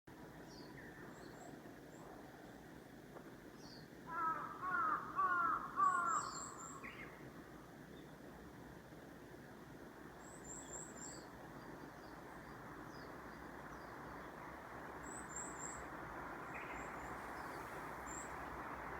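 Birds calling: a loud run of four or five harsh, curving calls about four to six seconds in, over short clusters of very high, thin chirps that come back every few seconds. A steady background hiss grows louder toward the end.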